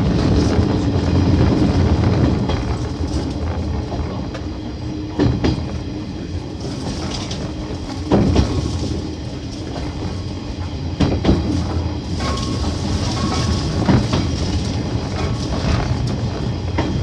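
A JR 115-series electric train running, heard from the front cab: a steady low rumble with a sharp knock every three seconds or so. Over it comes a rustling hiss of overgrown grass brushing against the right side of the train.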